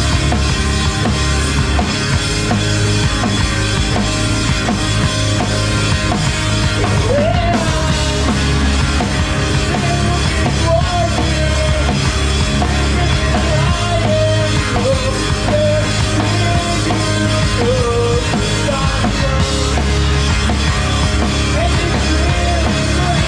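A rock band playing live and loud in a midwest emo/punk style: a drum kit keeps the beat under electric guitar and bass.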